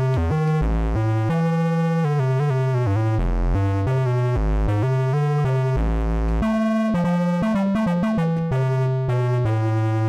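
Synthesizer patch from the Capsule plugin's Grit collection, played live on a MIDI keyboard as a line of low notes that changes pitch several times a second. From about seven seconds in, the notes come quicker and higher.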